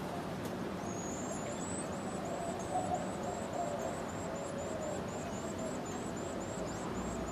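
High, thin bird calls repeated about three times a second, starting about a second in, over steady background noise.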